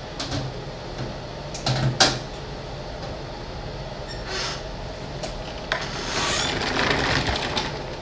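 Clicks and knocks of a sample being loaded into an X-ray inspection cabinet, with a sharp clack about two seconds in, followed in the second half by a longer rustling, sliding noise as the cabinet is closed up.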